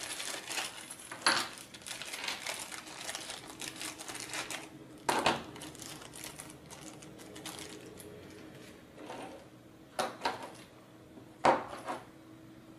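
Small robot-kit parts being unpacked from a plastic bag: plastic crinkling, with light clicks and clinks as parts are handled and set down on a table. Sharper knocks come about a second in, about five seconds in, around ten seconds in and near the end.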